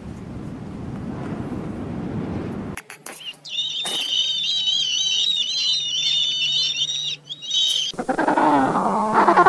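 A string of separate animal call clips, each cut in abruptly: a low, rough roaring growl, then a high, warbling call for about four seconds, then a lower call with falling, wavering pitch starting near the end.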